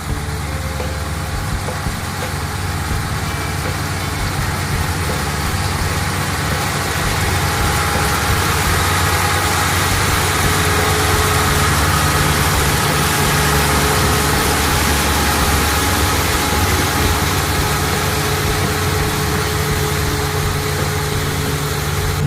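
An engine running steadily with a low hum, growing gradually louder over the first ten seconds or so.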